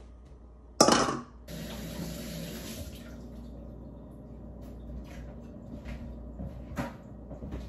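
A brief loud clatter about a second in, then a kitchen tap running steadily as hands are washed under it at the sink, with a light knock near the end.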